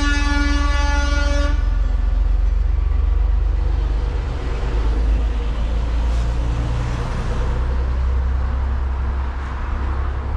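A long, loud horn blast on one pitch cuts off about a second and a half in. A steady low rumble and hiss follow.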